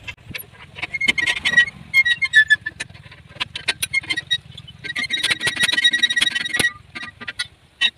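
Sharp metallic clinks and rattles as a steel spanner works the bolts and clamps of a rusty steel implement frame, the strikes ringing briefly. They come in quick runs, densest and fastest for a second or two about five seconds in.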